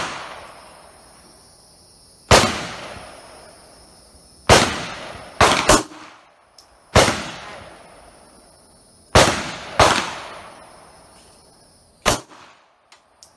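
Glock 17 9 mm pistol fired shot by shot, about nine sharp reports a second or two apart, a few in quick pairs. Each crack is followed by a short ringing echo.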